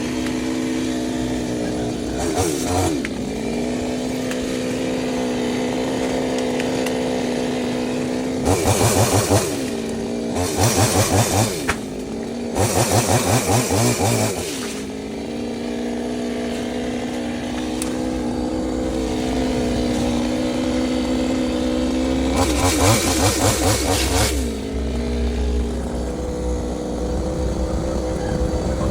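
Two-stroke chainsaw idling steadily, opened up to full throttle four times for a second or two each, as when cutting into a dead mango trunk.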